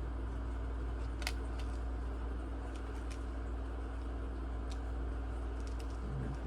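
A steady low hum with a handful of faint, light clicks of tiny metal laptop screws being picked through and handled, the sharpest about a second in.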